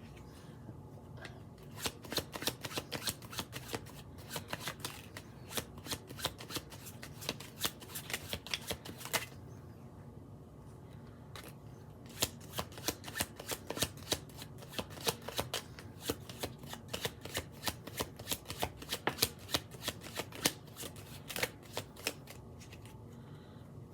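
A deck of tarot cards being shuffled by hand: rapid runs of crisp card clicks and snaps. It pauses briefly about ten seconds in and again near the end.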